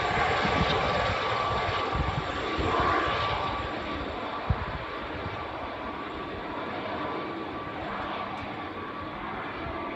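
Aérospatiale SA341G Gazelle helicopters flying away, their rotor and turbine noise carrying a steady whine and slowly fading as they recede. There is a single brief knock about halfway through.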